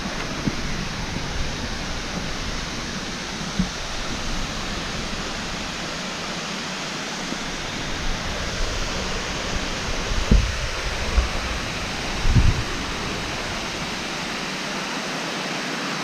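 Steady rush of a waterfall and the creek below it, with a few low thumps about ten and twelve seconds in.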